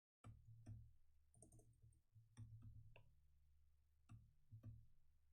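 Faint, irregular clicks from working a computer's keys and mouse, about nine in a few seconds, over a low steady hum.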